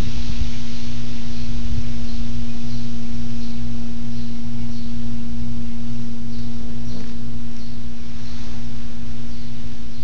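A steady low machine hum, one unchanging tone with a fainter, regularly pulsing deeper layer.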